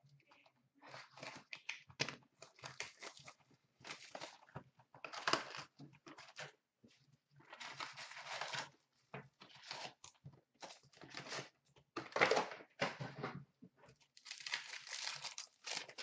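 A box of 2016-17 Upper Deck SP Authentic hockey cards being opened and its packs torn open by hand. There are repeated short bursts of ripping and crinkling wrapper, with brief pauses between them.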